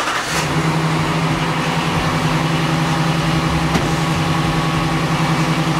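Ram 1500 pickup's engine idling with a steady low hum, settling in just after the start.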